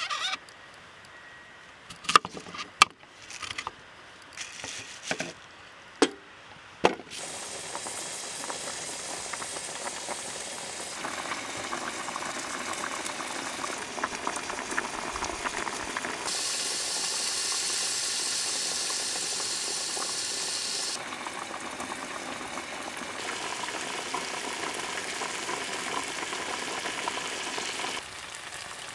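A kitchen knife cutting peeled potatoes on a wooden chopping board: several sharp chops in the first seven seconds. Then steady bubbling and sizzling on a gas camp stove, a pot of potatoes boiling and chicken and bacon frying in a pan, hissing loudest in the middle.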